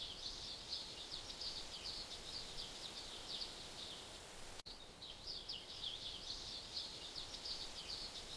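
A flock of small birds chirping and twittering in a dense, continuous high chatter over a faint hiss, with a sudden short break about four and a half seconds in before the chatter starts again.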